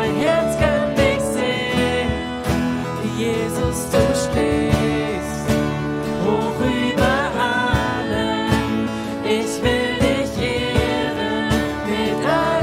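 A man sings a German worship song while strumming an acoustic guitar.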